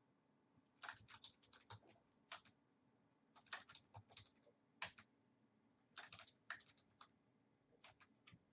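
Faint typing on a computer keyboard: irregular bursts of keystrokes with short pauses between them.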